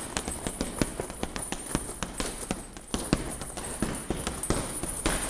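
Boxing gloves striking a heavy punching bag in a steady flurry of punches, about three to four blows a second.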